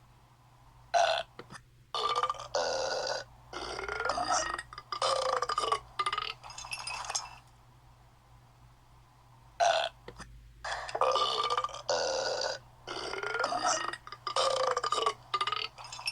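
A string of loud, drawn-out burps, several in quick succession with pitch sliding within each, then after a short pause the same string of burps again.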